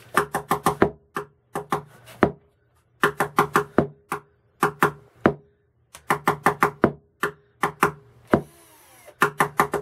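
A rhythmic beat of sharp knocks from a hand tool struck on a tabletop, used as the backing beat for a rap: a quick run of about five knocks and then a few spaced ones, the same pattern repeating about every three seconds.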